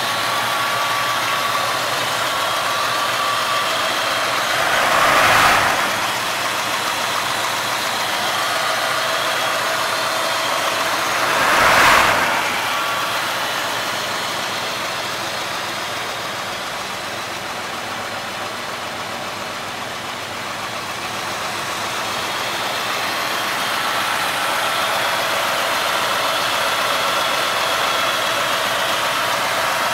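1965 Ford Mustang's 289 cubic-inch V8 running at idle, swelling briefly in loudness twice, a few seconds in and again near the middle.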